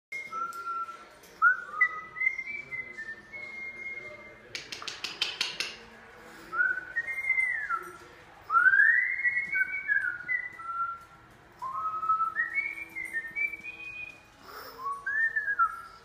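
A string of short whistled notes, each gliding up or down, with a quick rattle of sharp clicks about five seconds in.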